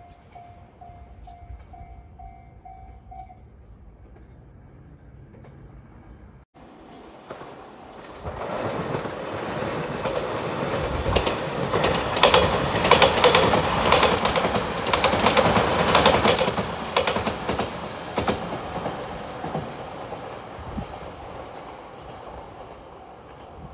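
A level-crossing warning bell rings about two and a half strikes a second and stops a few seconds in. A Shiokaze limited express electric train then approaches and passes over the crossing: wheels clatter over the rail joints, loudest in the middle, then the sound fades away.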